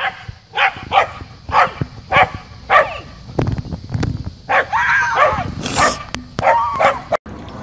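A dog barking repeatedly, about two barks a second, followed about halfway through by longer, wavering cries.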